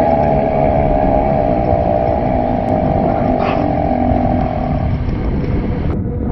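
One long, drawn-out human burp lasting about five seconds, its pitch wavering, then stopping. Wind buffets the microphone underneath.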